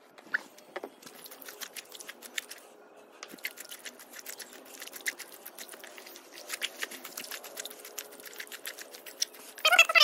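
Wet lucerne (alfalfa) leaves and stems being handled in a tub of washing water: a steady run of small crackles and rustles under the hand.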